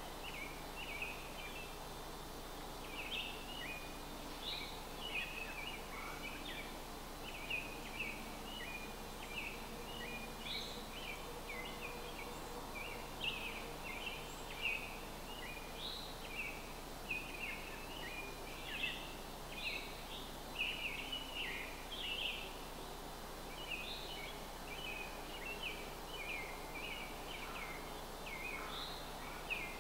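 Birds chirping continuously in many short, quick notes over a steady background hiss.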